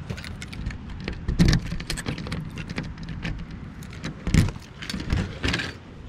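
A ring of keys jangling and a key worked in a metal door's lever-handle lock: a run of sharp clicks with two louder clunks about one and a half and four and a half seconds in, then the door pulled open near the end. A steady low rumble runs underneath.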